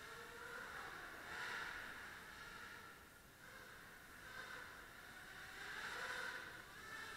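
Small 250-size quadcopter's motors and propellers whirring faintly, swelling louder about a second and a half in and again around six seconds in, and fading between.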